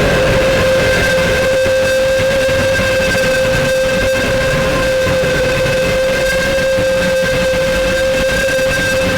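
Feedback noise from a Zoom MS-70CDR multi-effects pedal with no input: a steady whistle-like drone with higher overtones held over a dense, rumbling hiss.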